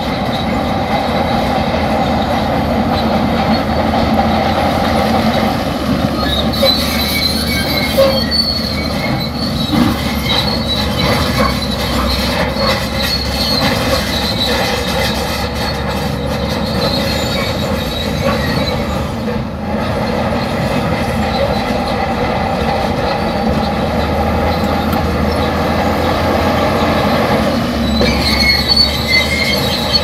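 Crawler bulldozer working, its steel tracks squealing and clanking steadily over the engine, with scattered knocks.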